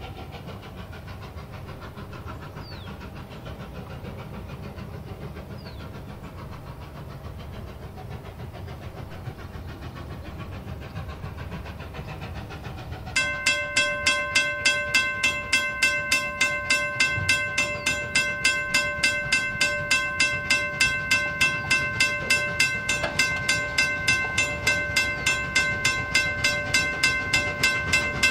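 Strasburg Rail Road No. 90, a 2-10-0 steam locomotive, working uphill with a freight train: a low rumble at first, then about 13 seconds in its exhaust chuffs come in loud and even, about two or three a second, over a steady high whine.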